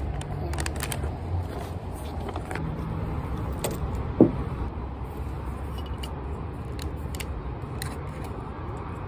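Steady low rumble of city traffic, with light clicks and rustles of a bottle and paper bag being handled, and one short sharp sound about four seconds in.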